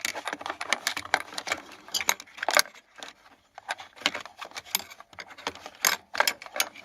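Plastic climate-control vacuum actuator being worked into its mount in the HVAC housing by hand, giving irregular clicks, knocks and rattles, with a short quiet pause a few seconds in.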